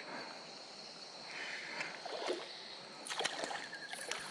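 Flowing creek water over a shallow bed while a light spinning reel is wound in slowly. About three seconds in, a run of short sharp splashes starts as a fish strikes at the lure near the surface.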